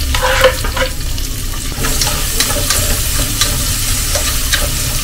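Sliced onions sizzling in hot ghee and olive oil in an aluminium pressure cooker, stirred with a wooden spatula that knocks and scrapes against the pot. The sizzling hiss grows louder about two seconds in.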